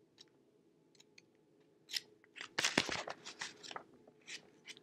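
Tarot cards being handled in the hand: a few faint clicks, then a cluster of crisp snaps and rustles about two seconds in.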